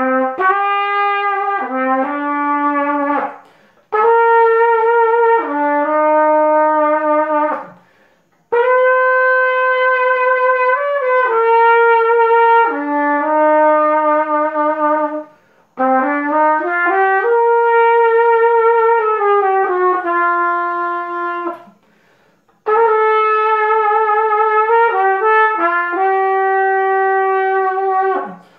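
Solo trumpet playing a slow melody of long held notes, in phrases broken by short pauses for breath.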